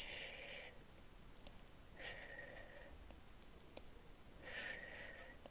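Three soft breathy exhalations or sighs close to the microphone, each under a second long, with a few faint clicks between them.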